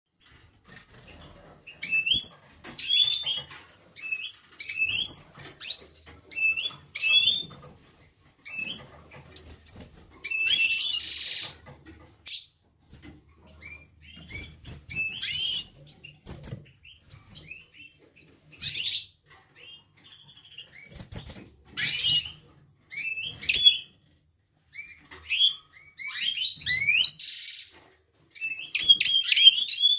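Caged European goldfinch (Carduelis carduelis major) singing: short bursts of quick twittering and chirps repeated every second or two, with a few buzzy, denser phrases and brief pauses between them.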